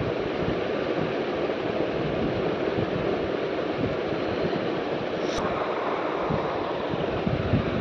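Steady, even rushing noise, with a short tick about five and a half seconds in.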